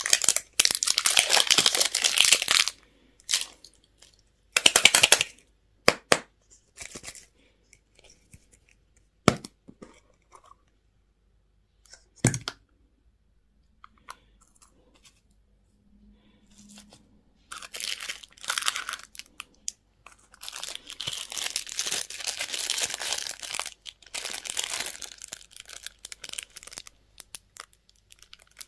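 Candy and toy wrappers being torn open and crinkled in bursts. A quieter stretch in the middle holds two sharp snaps, and a long run of crinkling follows in the second half.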